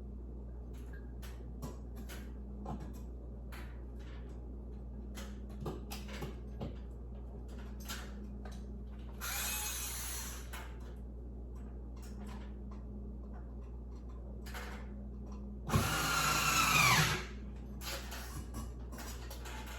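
Power drill running in two short bursts: a brief one about nine seconds in and a louder, longer one near sixteen seconds whose whine drops in pitch as it runs. In between are small clicks and handling knocks over a steady low hum.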